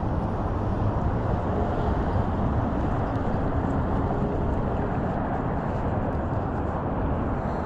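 Steady low rumble and rushing noise from riding a Bird electric scooter, with the road and wind noise carrying on evenly and no separate knocks or tones.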